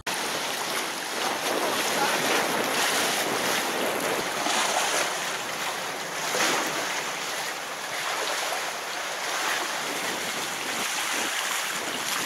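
Ocean surf washing on a beach with wind buffeting the microphone: a steady rushing noise.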